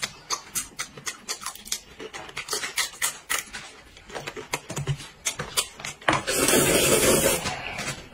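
Close-up eating sounds: quick wet mouth clicks and smacks while chewing, then, about six seconds in, a loud slurp of noodles lasting just over a second.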